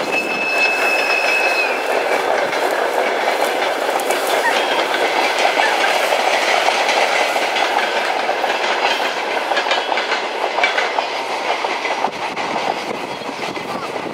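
Freight train of open gondola wagons rolling past at close range, a steady rumble with wheels clacking over the rail joints. A thin high squeal sounds for the first two seconds or so, and the noise eases a little near the end as the train draws away.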